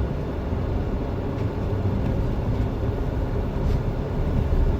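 Jeep Wrangler driving along steadily, its engine and tyre noise heard from inside the cabin as a steady low rumble.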